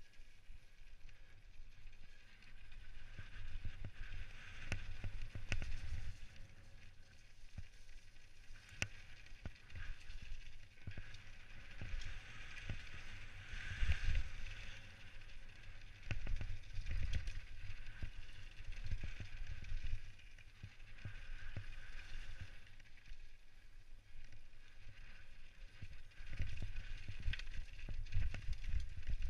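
Specialized Stumpjumper mountain bike riding fast down a dirt trail: tyre noise on dirt and gravel with a steady low wind rumble on the helmet microphone, and frequent knocks and rattles from the bike over bumps. The knocks get busier near the end as it rolls down rocky stone steps.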